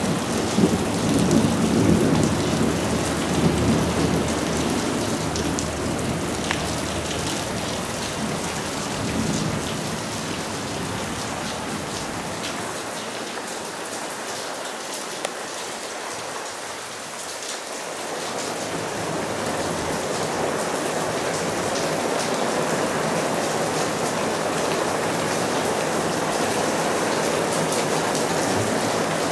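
Heavy monsoon rain pouring onto a roof and gutter as a steady hiss. A low rumble of thunder fills the first several seconds and fades away. The rain swells again later on.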